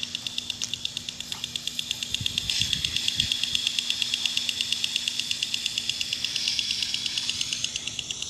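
Impact lawn sprinkler ticking rapidly and evenly, about eight ticks a second, over the hiss of its water jet. A few soft low thumps come about two to three seconds in.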